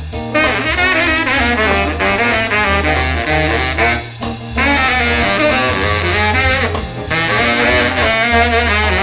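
Baritone saxophone playing a jazz melody line with vibrato. Its phrases break for short breaths about four and seven seconds in, over a steady low bass line and regular drum and cymbal hits.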